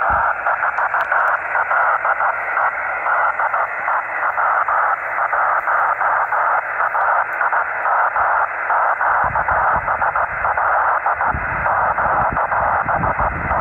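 Single-sideband receiver hiss from a radio tuned to the 10 GHz rain-scatter contact: a loud, rough hiss confined to the voice band, flickering rapidly. A low rumble joins in from about nine seconds in.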